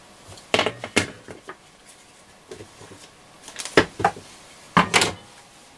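Irregular clicks and knocks from a white plastic battery holder and its wiring being handled beside a transistor radio, the sharpest knock nearly four seconds in and a quick pair about five seconds in.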